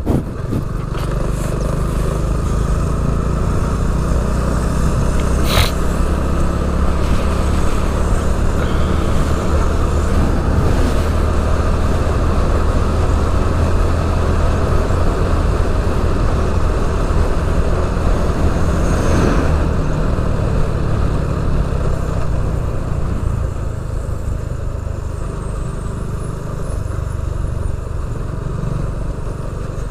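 Small step-through motorcycle riding at a steady road speed: its engine running evenly under a constant rush of wind and road noise, with one sharp click about six seconds in.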